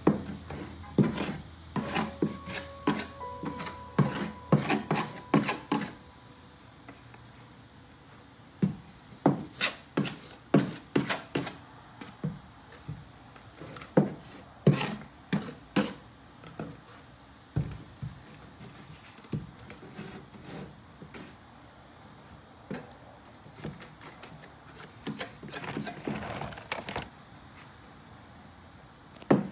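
Putty knife scraping and knocking against a plastic bucket and a plywood floor as thick resin filler putty is scooped out and pressed into floor seams: irregular runs of short scrapes and taps, busiest in the first few seconds and again in the middle.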